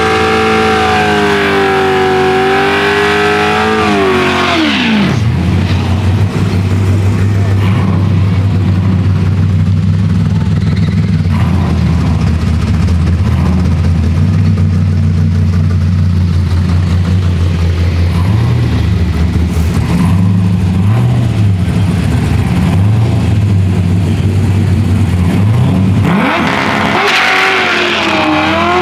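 Drag-strip car engines: one engine revs up, holds high revs for about four seconds and drops away, then a low engine idles steadily, and another engine revs up near the end.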